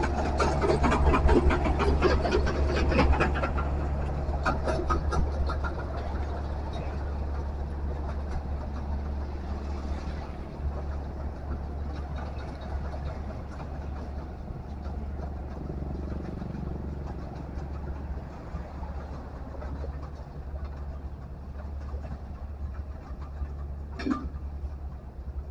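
Heavy machine's engine running steadily. A rattling clatter of knocks over the first few seconds dies away, and one short sharp sound comes near the end.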